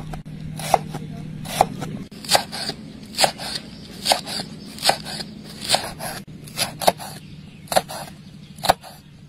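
Large kitchen knife chopping onion and chili on a wooden cutting board: a sharp knock of the blade on the board about once a second, steady throughout.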